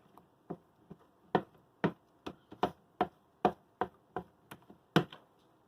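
A spoon knocking against a dish while stirring a thick melted cheese dip, about a dozen sharp clicks at an uneven two to three a second.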